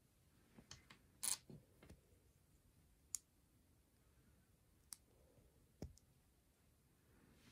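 Plastic Lego bricks being pressed and snapped together by hand: scattered sharp plastic clicks, the loudest about a second in, with a few more over the following seconds.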